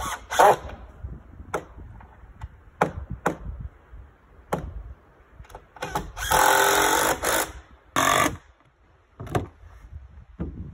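Cordless drill driving screws into wooden floorboards, in a series of short bursts of the motor with one longer steady run of about a second, six seconds in.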